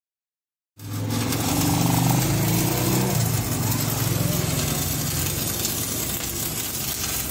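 Stick (arc) welding on a steel drum: a crackling, hissing arc over a steady low buzz, starting suddenly about a second in.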